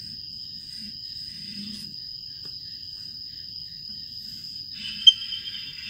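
Crickets keeping up a steady high-pitched trill, with soft scratching of chalk drawn across a board about a second in and again near the end, and a sharp click about five seconds in.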